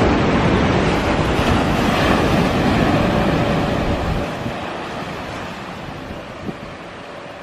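A loud, steady roaring noise, the unexplained sound heard in the sky, mixed with wind on the microphone. A deep rumble underneath falls away about four seconds in, leaving a hissing roar with a faint steady tone running through it.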